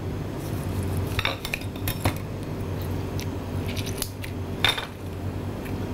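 Kitchen knife clinking and scraping against a plate and a glass bowl in a few scattered knocks, over a steady low hum.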